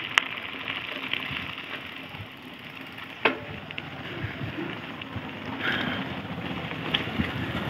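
Wind rushing over the microphone with tyre and ride noise as a mountain bike rolls along a road, with one sharp click about three seconds in.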